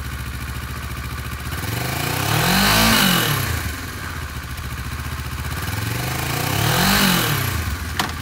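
2012 Kawasaki Versys 650's liquid-cooled 650cc parallel-twin engine idling and blipped twice, the note rising and falling about three and seven seconds in. A sharp click just before the end.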